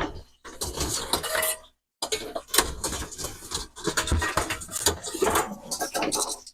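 Kitchen items being handled: irregular clattering and rustling with sharp clicks, in several stretches broken by short gaps.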